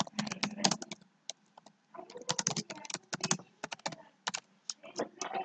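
Typing on a computer keyboard: quick, irregular keystroke clicks in runs with short pauses as a line of text is typed.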